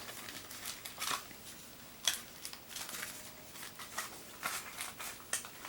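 Hands opening and handling toy packaging: irregular crinkling, rustling and small clicks of cardboard and plastic.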